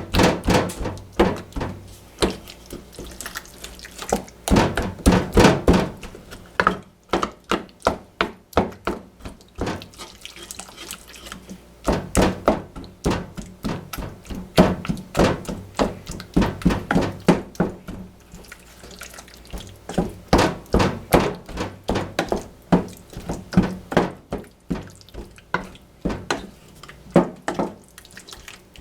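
Irregular knocks and clatter of kitchen food preparation, often several a second and coming in clusters, over a faint steady low hum.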